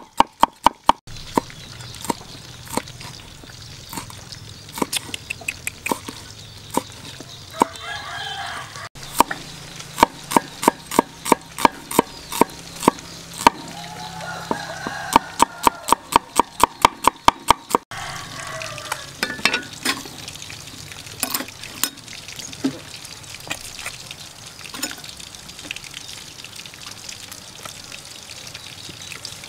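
Cleaver chopping on a wooden cutting board: rapid knocks, several a second, each with a short ringing of the blade, in runs that stop abruptly. In the last third the knocks turn sparser and lighter.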